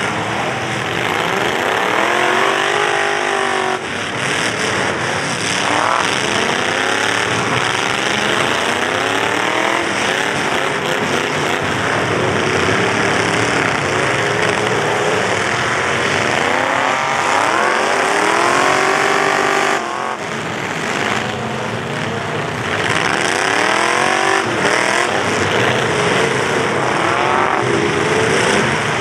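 Several demolition derby pickup truck engines revving hard, their pitch climbing and falling again and again as they rev and back off, over a steady wash of crowd noise.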